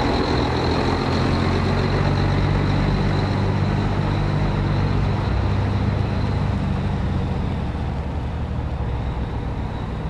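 Diesel engine of a heavy articulated tipper lorry loaded with wood, running as the lorry drives slowly past and away. The low engine rumble slowly grows fainter over the second half.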